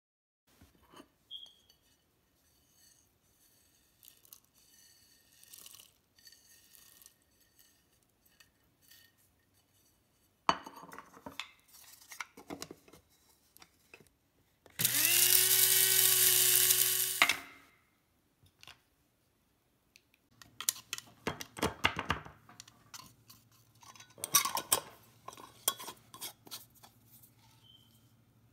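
Electric blade spice grinder running for about two and a half seconds, its motor pitch rising as it spins up, grinding whole spices to powder. Before and after come scattered clicks and knocks of the grinder lid and bowl being handled, and clinks as the powder is tipped into a glass jar.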